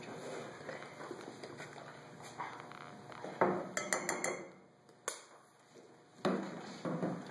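Kitchen utensils clinking: a metal spoon tapping and scraping against a small glass jar and an open tin can. There are scattered sharp clicks, with a quick run of them about four seconds in.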